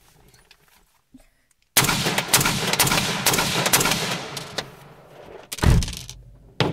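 Rapid string of rifle shots from a short-barreled 5.56 mm AR-pattern carbine (MK18 clone), starting about two seconds in, heard from inside the car. There is a heavy thump about five and a half seconds in.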